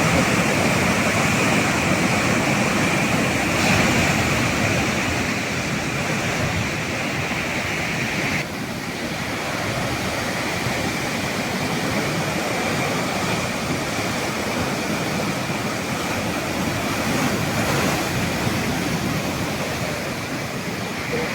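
Sea waves washing on the shore, a continuous rushing surf that drops a little in level abruptly about eight seconds in.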